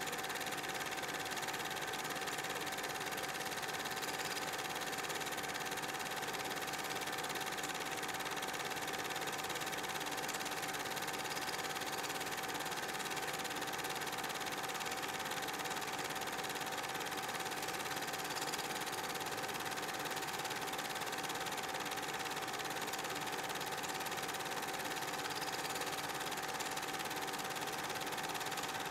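Super 8 film projector running, a steady mechanical whirr and clatter with a constant hum-like tone.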